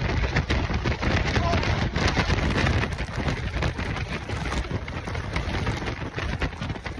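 Hurricane rain and wind: a dense, steady rush of heavy rain with strong gusts.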